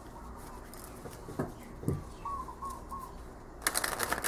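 A deck of tarot cards being riffle-shuffled: after a few seconds of quiet handling with a couple of faint knocks, the two halves are riffled together about three and a half seconds in, giving a fast rattle of card edges flicking down.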